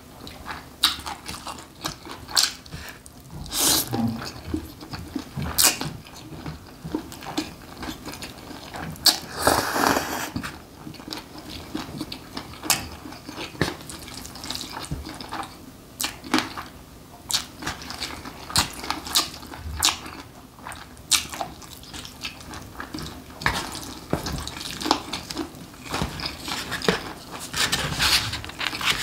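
Close-up wet chewing and mouth sounds of someone eating spicy mixed noodles and braised pork trotter, with frequent sharp clicks of metal tongs on the bowl.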